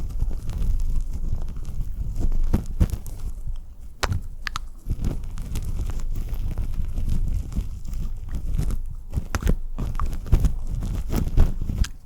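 Close-miked wet ASMR mouth sounds: irregular smacks and sharp clicks, many to the second, over a low rumble.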